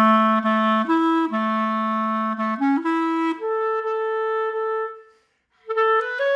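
Clarinet played through a Bacun Vocalise H mouthpiece: sustained low notes stepping up and down, then a long held higher note. A short break for breath comes about five seconds in, and then a quicker run of notes begins.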